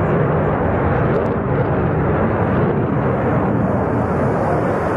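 Jet engine noise of a Dassault Rafale fighter in flight, its twin Snecma M88 turbofans heard from the ground as a steady, even rush with no breaks.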